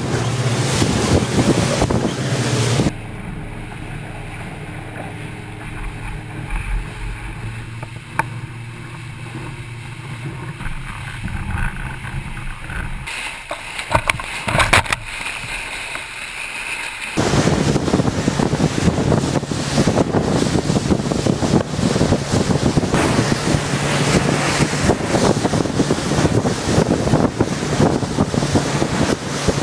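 Small powerboat under way: its motor runs steadily beneath heavy wind buffeting on the microphone and the wash of water. From about three seconds in, for some fourteen seconds, the sound drops and turns duller, leaving mostly the motor's hum, with a couple of sharp knocks near the middle, before the loud wind and water return.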